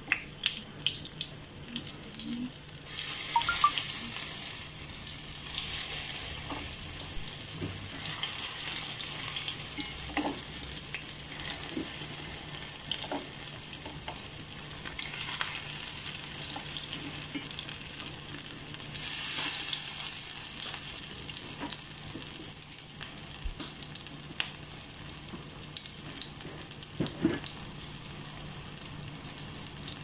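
Vegetable fritters shallow-frying in hot oil in a pan: a steady high sizzle that swells louder twice, a few seconds in and again past the middle. A few light clicks of metal tongs against the pan are scattered through it.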